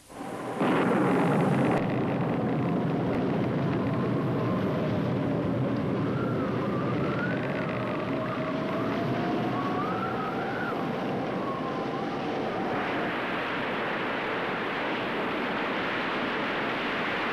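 Storm at sea: a steady roar of wind and water with a wavering, howling wind tone through it and higher whistles that come and go in the middle. Near the end it turns into a brighter rushing hiss of breaking waves.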